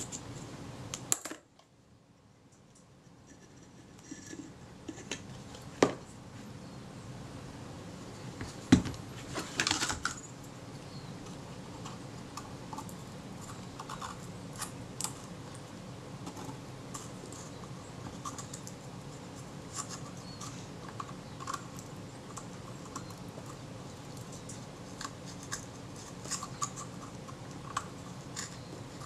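Scalpel blade scraping and clicking against a camera's metal body casting as glued leatherette is pried off, small scratchy ticks over a steady low hum. A few sharper clicks come around six and nine seconds in, the loudest just before ten seconds, and the sound drops out briefly just over a second in.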